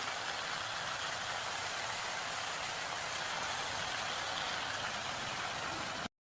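Country rooster pieces sizzling steadily in hot oil and spices in a pan while being fried down for kosha curry, a constant crackling hiss that cuts off abruptly just before the end.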